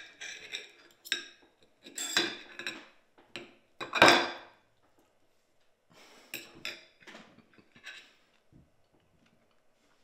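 Cutlery scraping and clinking on a dinner plate while food is cut and eaten, in a run of short scrapes. The loudest comes about four seconds in, and the sounds stop after about eight seconds.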